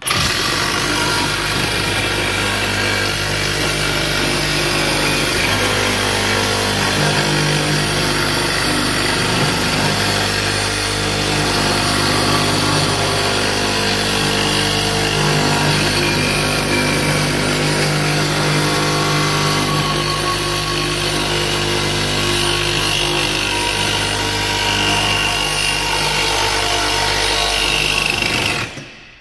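Cordless reciprocating saw running steadily as it cuts through the metal shell of a catalytic converter, stopping just before the end.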